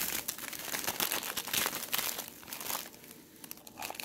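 Plastic wrapping on a sleeve of mini powdered donuts crinkling as it is handled and pushed down into a cup, dense for about three seconds, then quieter with a few crackles near the end.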